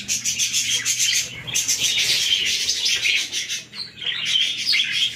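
Budgerigars chattering: a busy, continuous twittering made of many quick short notes.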